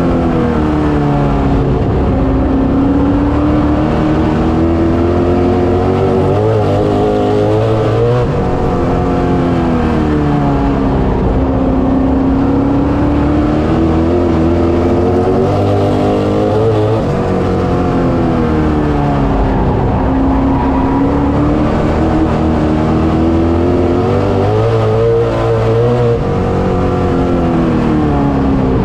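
Street stock race car's engine, heard from inside the cockpit, running hard around the oval: the revs climb, then drop and stay low for a few seconds, in a cycle that repeats about every eight to nine seconds as the car accelerates and lifts lap after lap.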